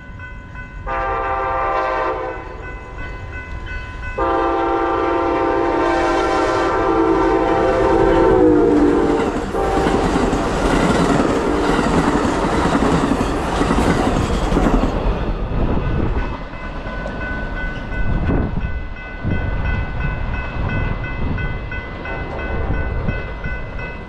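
Passenger train horn sounding a short blast, then a long one whose pitch drops as the locomotive passes: the closing short-long of the grade-crossing horn signal. The train then rushes past at speed, its cars rattling and wheels clicking over the rail joints, the noise easing off toward the end. A crossing bell rings steadily underneath.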